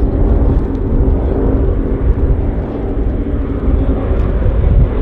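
A formation of North American Harvard trainers flying overhead, their Pratt & Whitney R-1340 Wasp nine-cylinder radial engines giving a steady, loud drone with a deep rumble beneath it.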